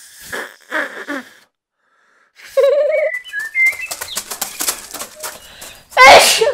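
Cartoon bird chirping and whistling, then near the end a child's loud sneeze.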